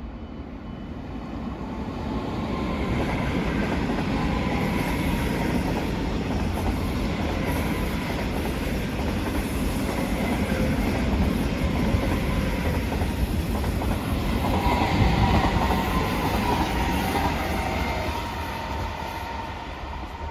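A train running past on the tracks: rumble and rail noise build up over the first couple of seconds, are loudest about three-quarters of the way through, then ease off, with high steady whining tones above the rumble.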